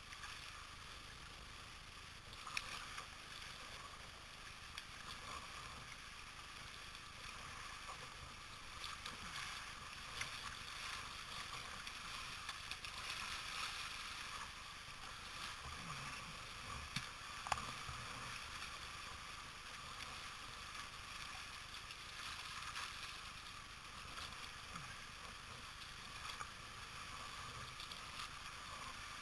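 Steady rush of moving river water around a kayak, with a few sharp knocks and splashes, the loudest about seventeen seconds in.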